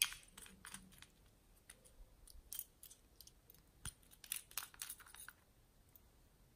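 Small glass nail polish bottles being handled between the fingers: a run of light clicks and taps, the sharpest right at the start and just before four seconds in, stopping a little after five seconds.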